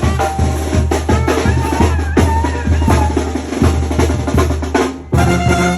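Music with a steady drum beat and a held melody line, dipping briefly about five seconds in.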